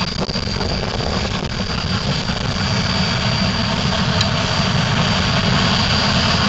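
Three Shay geared steam locomotives working hard side by side, their rapid exhaust chuffs running together into a dense, continuous chatter that grows gradually louder as they approach.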